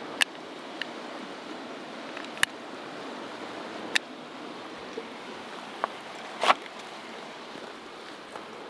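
Steady rush of a river's flowing water, with a handful of short sharp clicks spread through it, the loudest about six and a half seconds in.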